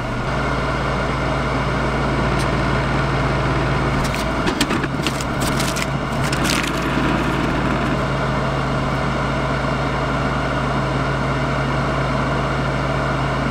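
A steady low mechanical hum with no speech, and a short patch of sharp crackling clicks between about four and six and a half seconds in.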